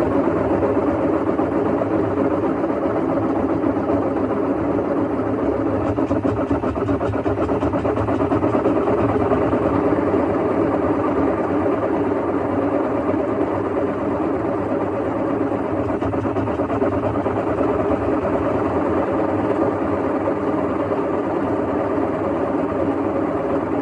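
Panasonic washing machine running with a loud, steady rumbling roar from its drum bearing, the sign of a worn drum bearing.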